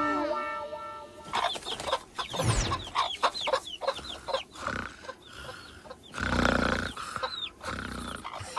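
Cartoon hens clucking in a run of short, quick calls, with a low thud about six seconds in.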